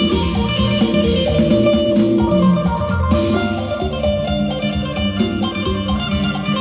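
Phin, the Isan lute, played solo: a quick plucked melody over a steady drone string.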